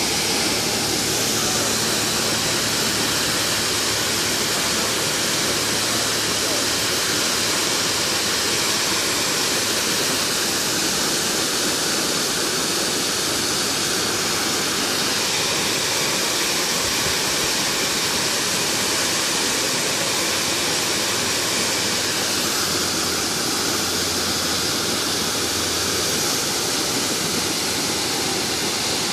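Waterfall pouring down a rock face into a pond: a steady, even rush of falling water.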